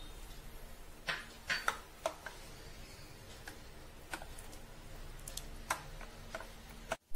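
Steel spoon stirring thick rice batter in a ceramic bowl: a faint, quick, steady stirring sound broken by several sharp clinks of the spoon against the bowl.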